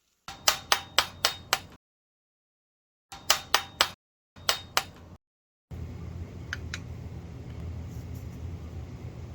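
A hammer strikes repeatedly in three quick runs of ringing blows, about four a second. Near the middle, a steady low mechanical hum with noise takes over.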